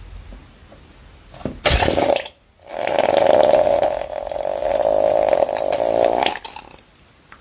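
A slime-filled balloon bursting: a short loud noisy burst about a second and a half in, followed by a long loud noisy rush lasting about three and a half seconds.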